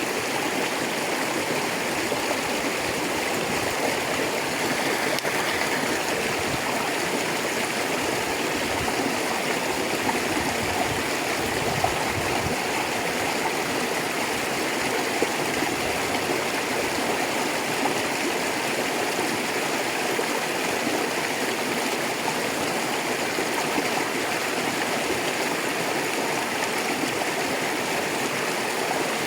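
A rocky river rushing and babbling over stones, a steady, even flow of water with small splashes and gurgles.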